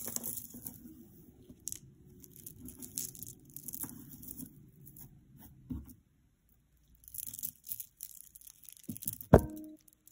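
Hands handling a chunky necklace of turquoise chips and stone pendants: the beads rustle and click against each other, with one sharp knock of stone near the end.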